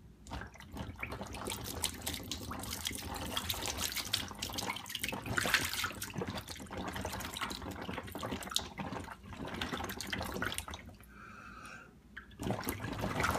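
Air bubbling and gurgling up through water inside an upturned plastic container held under water, fed in through a thin tube and pushing the water out. The bubbling runs for about ten seconds, then eases off, with a short burst near the end.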